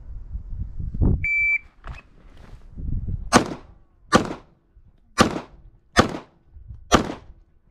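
A shot-timer start beep, then a Glock 34 Gen4 9mm pistol fired five times, roughly a second apart, with a sixth shot just at the end.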